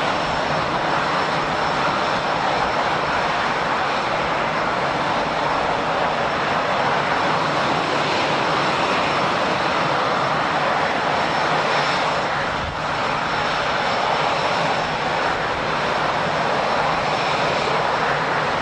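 Airbus A320-214's CFM56 turbofan engines running at idle, a steady jet noise with a faint high whine.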